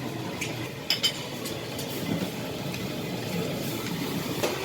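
Steady background noise of a dining area with tableware clinking twice, sharply, about a second in, and once more lightly near the end.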